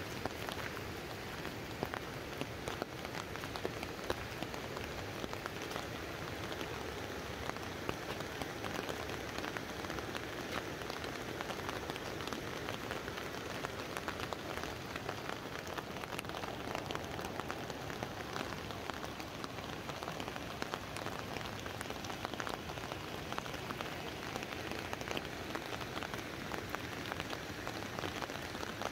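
Steady rain falling on an umbrella overhead: an even hiss dotted with many sharp taps of single drops, recorded binaurally.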